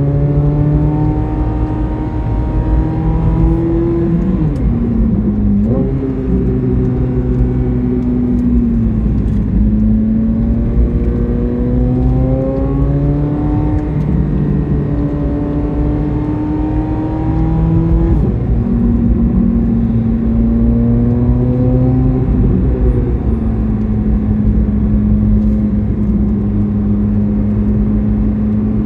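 C8 Corvette Z06's flat-plane-crank V8 pulling through the gears on a winding road: the engine note climbs steadily, then drops sharply at each shift, about four times, over steady road rumble.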